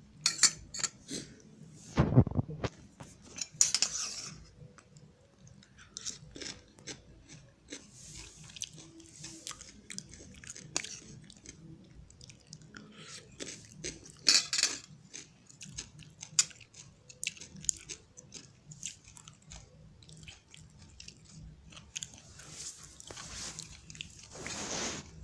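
Irregular crunching, clicks and scrapes of raw salad vegetables (radish, capsicum, onion) being handled with kitchen utensils and dishes, with louder crunches about two, four, fourteen and twenty-four seconds in.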